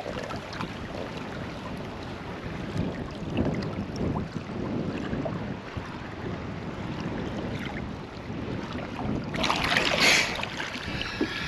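Water sloshing and lapping against the catamaran's hull, with light wind on the microphone. About ten seconds in, a louder rush of splashing as a snorkeler surfaces beside the hull.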